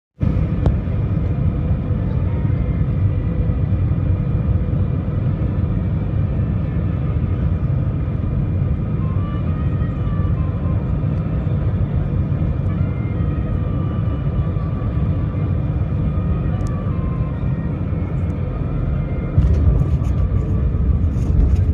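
Airliner cabin noise during the landing rollout: a steady low rumble of engines and runway with a faint steady whine above it. About 19 seconds in it grows louder, with rattling clicks.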